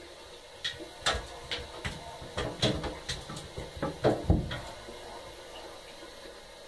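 A cat scrabbling in an empty bathtub: a quick, uneven run of a dozen or so clicks and knocks of paws and claws on the tub's hard surface, the loudest thump a little past the middle, then it stops.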